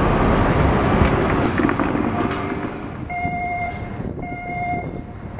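A heavy mechanical rumble fades over the first half. About three seconds in, a warning signal gives two steady pitched beeps, each a little over half a second long, half a second apart, at a level crossing where a Shinkansen car is being moved.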